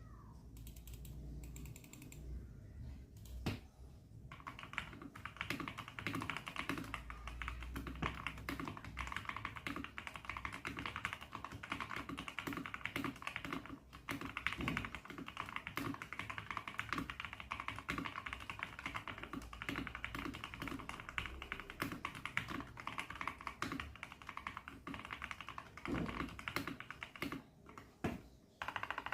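Typing on a Zifriend T62 mechanical keyboard with red linear switches: a few scattered keystrokes, then, about four seconds in, continuous rapid typing that runs until shortly before the end.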